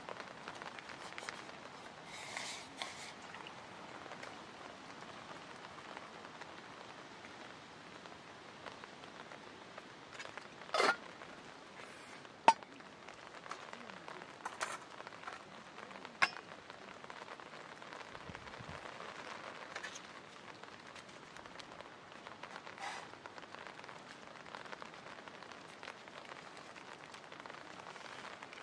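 Campfire burning: a steady soft hiss with scattered sharp crackles and pops, the loudest a little under halfway through.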